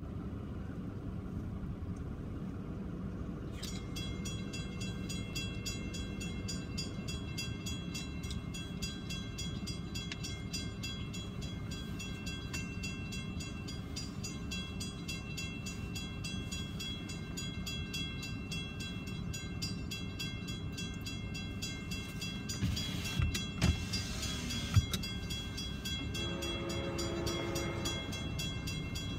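Railroad crossing bell starts ringing a few seconds in as the crossing signals activate, a steady rapid ringing that carries on over a low, even background rumble. A few thumps come near the end, and then a train horn begins to blow.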